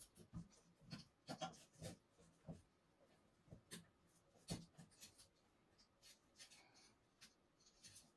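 Faint, scattered clicks and rubbing as gloved hands handle a car window regulator, fitting its steel cable onto the plastic cable drum. The sharpest click comes about halfway through.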